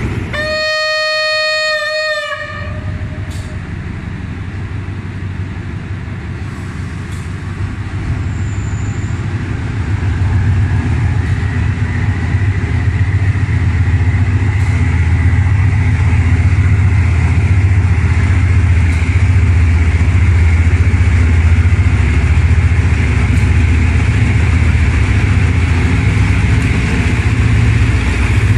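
A train horn sounds one steady blast of about two seconds. Then the engine of an SRT GEA-class GE diesel-electric locomotive rumbles louder and louder as it runs in along the platform and passes close by, with a thin steady whine joining in about ten seconds in.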